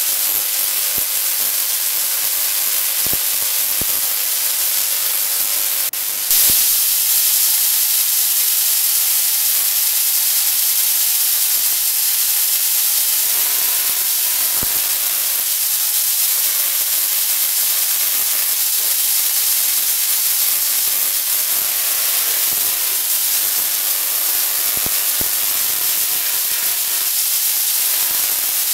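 Homemade spark-gap Tesla coil running, its spark discharges making a steady, loud hissing crackle. The hiss gets louder about six seconds in.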